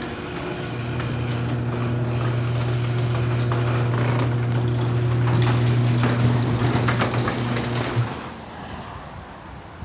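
Electric wire stripping machine running with a steady motor hum, with clicking and crackling over its second half as wire goes through it; the motor shuts off suddenly about eight seconds in.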